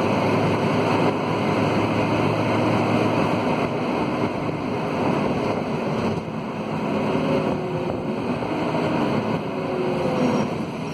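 Inside a Scania K230UB city bus under way: the rear-mounted Scania DC9 diesel is running with its radiator fan howling, over steady road noise. The engine note shifts a little in the last few seconds.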